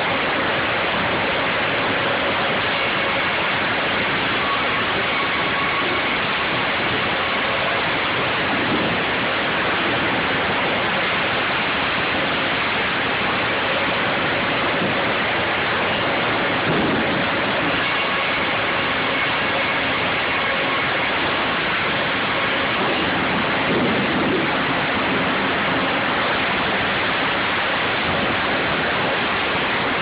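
Steady din of sawmill machinery: the headrig, carriage and roller conveyors running, with a faint high whine that comes and goes and a few brief low swells.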